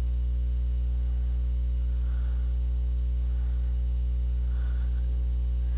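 Steady electrical hum on the recording line, a low drone with a ladder of overtones and no other sound.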